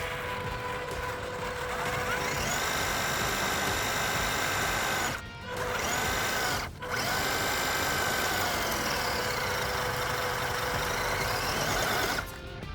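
Small electric motor and gearbox of an MN128 RC off-road truck whining, rising in pitch as it speeds up, cutting out twice briefly, then dropping and climbing again before stopping, with background music underneath.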